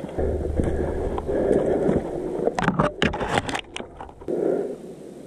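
Rustling and crackling of dry fallen leaves and twigs as a player moves, with a quick run of sharp snaps and clicks around the middle. A low rumble from wind or handling on the microphone runs underneath.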